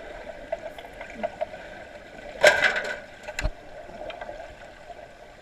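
Underwater sound of an underwater hockey scrum, heard through a submerged camera: a steady hum with scattered sharp clicks and knocks, and a loud half-second rush of water noise about two and a half seconds in.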